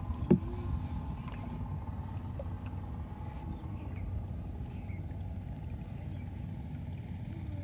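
Small boat's engine running with a steady low drone as the boat moves across the water, with one brief sharp sound about a third of a second in.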